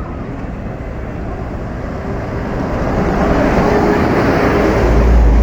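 Large tour bus engine running, getting steadily louder over the last few seconds, with a heavy deep rumble near the end.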